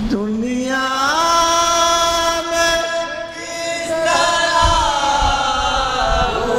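Naat being sung by a single voice, which glides up into a long held note, holds it for about two seconds, then begins a new phrase about four seconds in.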